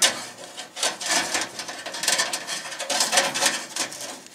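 Metal mesh grease filter being slid into its slot in the underside of a Samsung over-the-range microwave: irregular scraping and rubbing with a few light knocks, starting with a sharp knock and dying away near the end.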